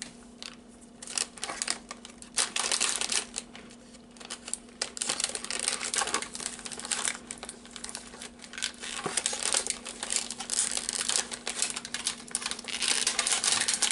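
Plastic snack wrapper of a chocolate coconut cookie being handled and crumpled: a dense, irregular run of crinkles and crackles that grows louder near the end.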